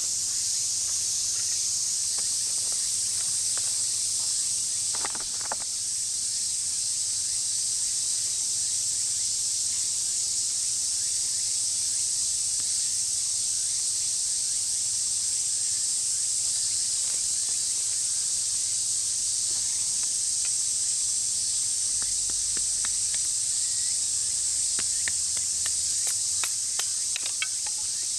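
Insects in summer vegetation making a steady, high-pitched shrill drone, with a few faint ticks near the end.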